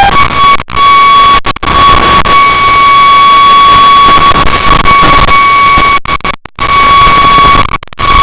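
Loud static hiss from an analog FPV video receiver, with a steady high-pitched buzz running through it. The sound cuts out briefly several times, about a second in, near the middle of the second half and near the end, as the signal breaks up.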